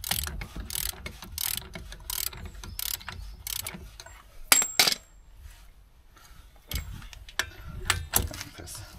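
Socket ratchet clicking in short runs as it turns a wheel nut off a Trabant 601 brake drum hub. Two sharper metallic clicks come about halfway through, then a short lull before the ratcheting resumes.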